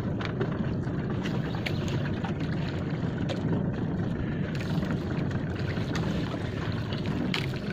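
Steady low rumble and hiss of a small fishing boat at sea, with a few faint clicks, one a little louder near the end.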